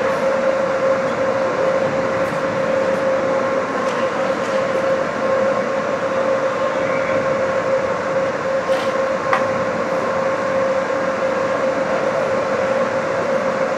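Steady mechanical drone with a constant mid-pitched hum running unchanged, with a few faint sharp clacks from the play on the ice, two of them about nine seconds in.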